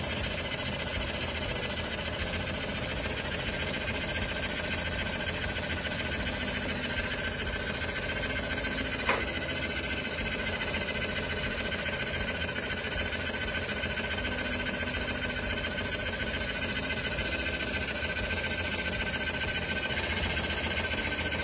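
Ford engine running steadily in its engine bay, heard up close, with a steady high whine over the running. A single sharp click comes about nine seconds in.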